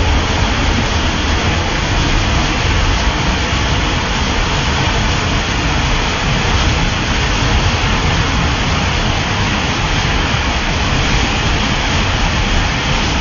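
Waterfall: loud, steady rush of falling water.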